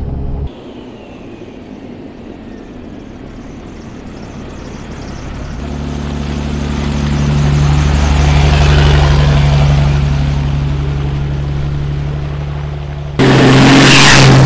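A truck driving past, its engine and tyre noise swelling to a peak and fading away. Near the end it cuts abruptly to a much louder, close-up engine sound.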